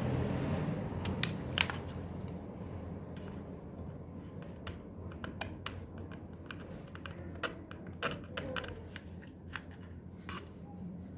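Scattered light clicks and taps over a low steady hum, with a louder sound dying away at the start.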